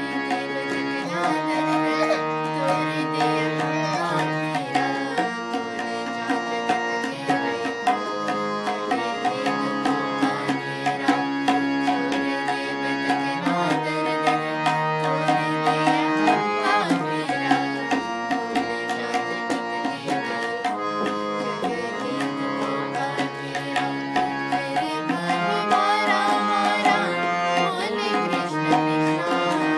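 Hand-pumped harmonium playing a melody in held reed notes, accompanied by tabla with a steady run of drum strokes.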